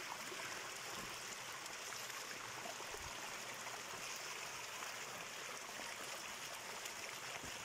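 A small mountain stream trickling over rocks: a steady, gentle rush of running water, with a few soft low thumps.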